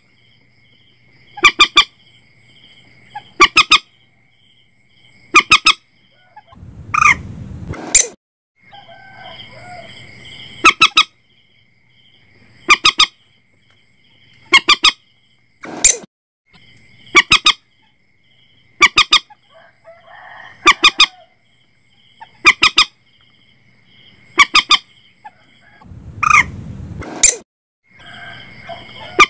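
Common moorhen calling repeatedly: loud, short, sharp notes in groups of two or three, about every two seconds, with a longer, harsher call twice. It is a looped lure recording for drawing the birds in at night.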